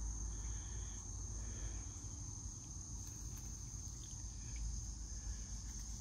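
Insects singing a steady, high-pitched trill, with a low rumble underneath.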